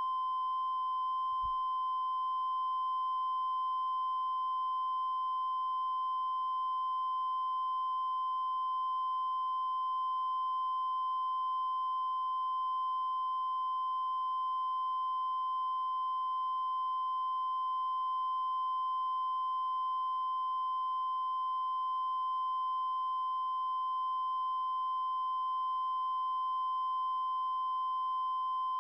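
Steady 1 kHz reference tone, one continuous unchanging pitch at an even level: the audio line-up tone recorded with colour bars at the head of a broadcast video tape, used for setting audio levels.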